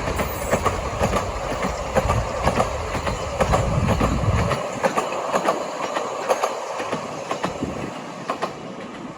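Vale of Rheidol narrow-gauge train running, its wheels clicking over the rail joints with many irregular sharp clicks over a steady rushing noise; the low rumble drops away about four and a half seconds in.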